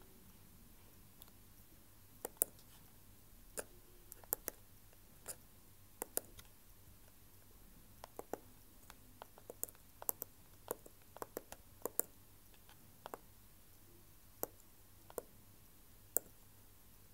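Small tactile push-buttons on a homemade circuit board being pressed by finger, giving short sharp clicks at irregular intervals, often two in quick succession.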